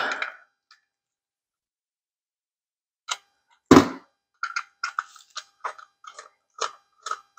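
Screwdriver and small metal parts clicking as the rotor is unscrewed from a GM HEI distributor. A light tap about three seconds in and a louder knock just after are followed by a run of light ticks, about four a second.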